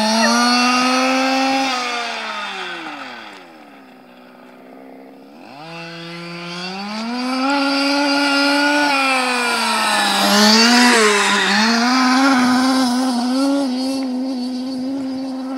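Losi 5IVE-T 1:5-scale RC truck's two-stroke petrol engine running at speed. About three seconds in, its pitch drops to a low idle as the throttle eases off. Around six seconds it revs back up and holds high, wavering as the throttle is worked.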